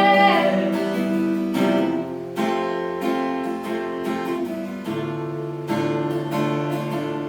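Acoustic guitar strumming chords in an instrumental passage between sung lines, a fresh strum about every second. The last sung note fades out in the first half-second.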